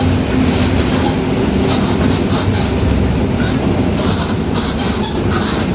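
Mercedes-Benz OF-1721 BlueTec 5 city bus running at speed, heard from inside: a steady diesel and drivetrain drone with the rear differential growling, and the body rattling.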